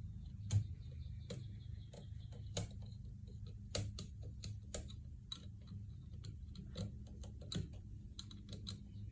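Irregular sharp clicks and light taps, about one or two a second and the loudest about half a second in, over a steady low hum.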